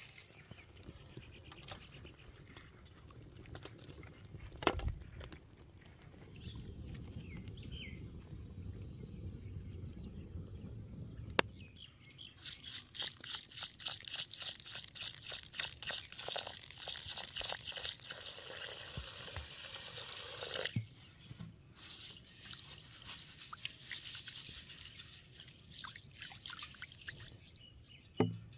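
Basmati rice and water being poured into a large steel tray to soak: a dense hissing patter of grains and water against the metal, loudest through the middle stretch, with a few sharp knocks of the tray.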